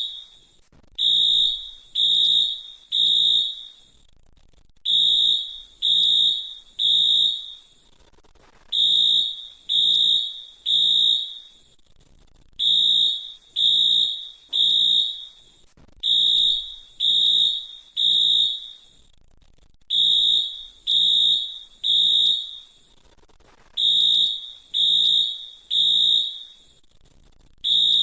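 Fire alarm sounding the temporal-three evacuation pattern: three high-pitched beeps about a second apart, then a pause of about a second and a half, repeating over and over.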